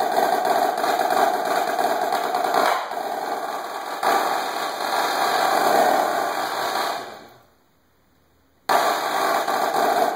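Marching snare drum played in rapid, dense strokes and rolls, dropping softer about three seconds in, then building again. About seven seconds in it fades away to a second of silence, then comes back in suddenly and loud.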